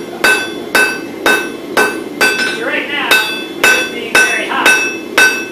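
Hand hammer forging red-hot wootz crucible steel on an anvil, about two blows a second in an even rhythm. Each blow has a short metallic ring, over a steady low rush.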